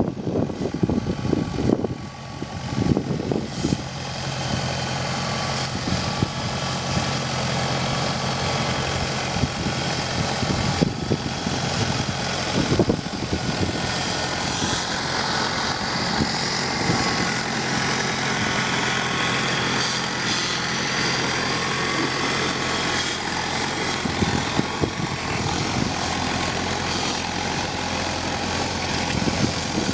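Engine of a homemade tractor running steadily, with irregular knocks and rattles in the first few seconds and again in the last several seconds.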